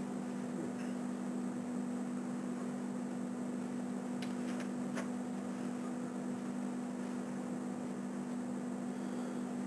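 Steady electrical hum with an even hiss underneath, the recording's background noise. A few faint clicks come about halfway through.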